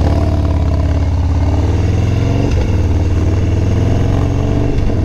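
Harley-Davidson Dyna Street Bob's Twin Cam 103 V-twin running as the bike is ridden. Its pitch eases down over the first couple of seconds, breaks briefly about halfway through, then holds steady.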